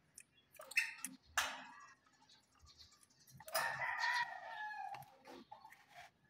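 Caged lovebirds calling: two short sharp chirps about a second in, then a longer squawk of about a second starting around three and a half seconds in, and a few short calls near the end.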